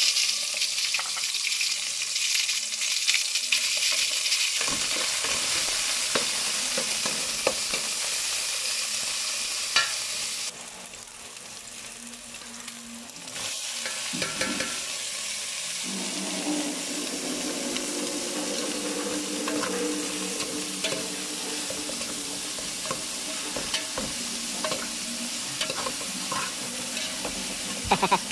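Garlic and onion frying in oil in a metal pot, sizzling steadily while being stirred. Cut vegetables then fry and sizzle in the same pot. The sizzle dips briefly about ten seconds in.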